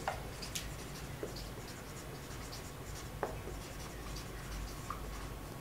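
Marker pen writing on a whiteboard: soft scratching strokes as words are written, with a few short squeaks of the felt tip.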